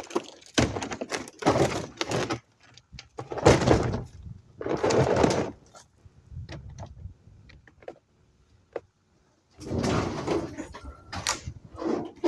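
Bangs, scrapes and thuds of a bulky piece of discarded scrap being dragged and wrestled out of a dumpster, in several rough bursts with a short pause before the last one.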